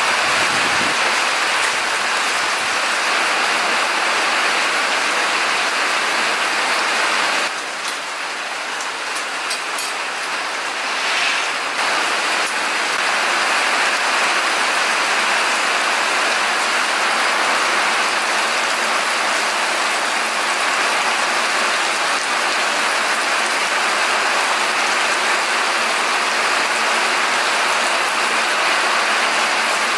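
Steady rain falling and pattering on surfaces, a little quieter for a few seconds about eight seconds in.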